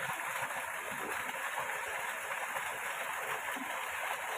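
Water running in a small ditch, a steady rushing hiss with no change in level.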